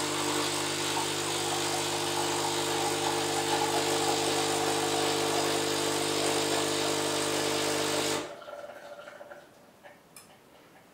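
DeLonghi Magnifica ESAM 4500 espresso machine's vibration pump buzzing steadily with a hiss while it brews a coffee. It cuts off abruptly about eight seconds in, leaving a few faint clicks.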